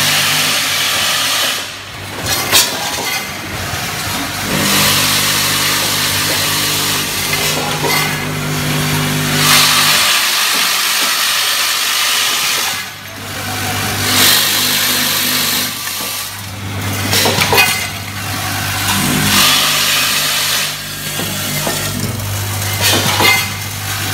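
Vibratory bowl feeders of an automatic screw packing machine running: a steady low hum under the dense metallic rattle and chatter of screws shaken along the steel bowls and chutes, with scattered sharp clicks. The rattle swells and fades several times.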